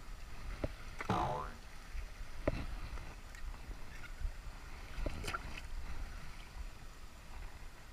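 Low rumble of moving water and wind on the microphone, with a few sharp clicks scattered through and a short vocal sound about a second in.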